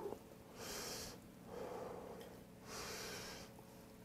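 A person blowing on a lift of hot ramyeon noodles to cool them: two breathy puffs about two seconds apart, with a softer breath in between.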